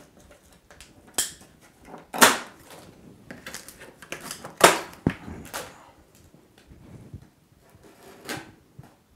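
Scissors cutting through the plastic strapping bands on a cardboard box, heard as a handful of separate sharp snips and knocks with quiet between. The loudest comes about four and a half seconds in.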